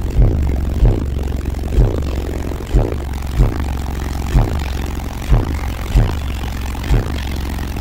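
Bass-heavy music played loud through a car audio system's Skar subwoofers: a steady deep bass drone with booming bass hits that drop in pitch about once a second.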